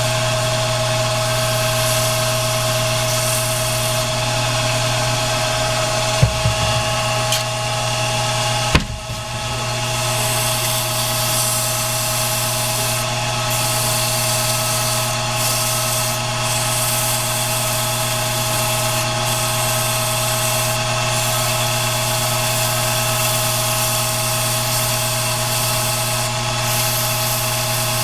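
Lathe motor running steadily with a hum while sandpaper rubs against the spinning briar pipe bowl, rounding over the rim. Two brief knocks about six and nine seconds in.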